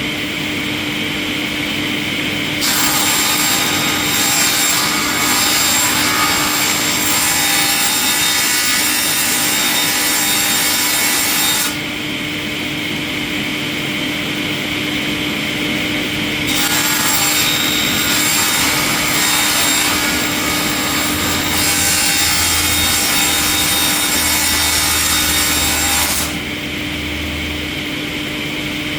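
Wood-processing machine running with a steady hum, twice cutting into wood with a loud, harsh grinding noise for about nine seconds each time. The cuts start a few seconds in and about halfway through, and each stops abruptly.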